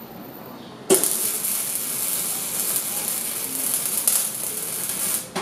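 Wire-feed welding arc sizzling as a joint is welded on thin metal rods; it strikes suddenly about a second in, runs steadily for about four seconds, and cuts off sharply when the trigger is released.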